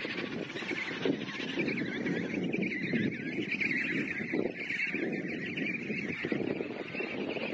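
Emperor penguin chicks giving many overlapping high, wavering whistling calls over a steady low rumble.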